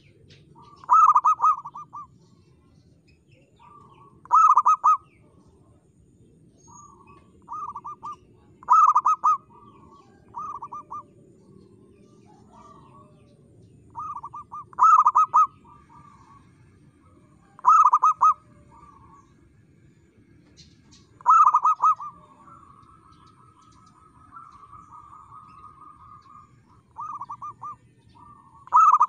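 Zebra dove (perkutut) cooing: short bursts of rapid staccato notes repeated every three to four seconds, with a longer, quieter rolling trill a little past the middle.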